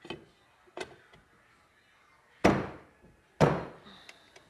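Gearbox shafts being seated into their bearings in a Bajaj Discover engine's aluminium crankcase: a couple of light metal clicks, then two loud knocks about a second apart.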